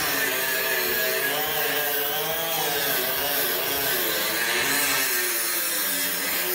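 Handheld power tool cutting into the sheet metal of a 1949 Buick door, with a steady, harsh hiss.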